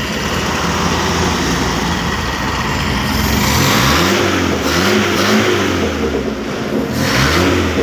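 Toyota 4K four-cylinder carbureted engine running, then revved several times from about three seconds in, the pitch rising and falling with each blip of the throttle. It revs strongly and without stumbling, with a new fuel jet fitted in the carburetor.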